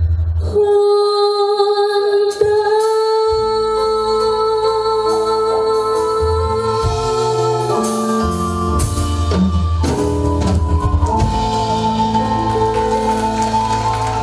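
Female singer holding a long sustained note with vibrato over a live band: held keyboard chords, bass guitar and drums with cymbal strikes. The note changes about seven seconds in, and the music carries on as the song closes.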